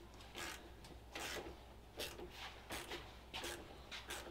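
Quiet, short rubbing strokes of hand work, about eight in four seconds at an uneven pace.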